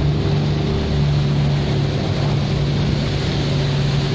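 Diesel engine of a large steel cargo barge running with a steady low drone as it pushes upstream, over a hiss of moving water and wind.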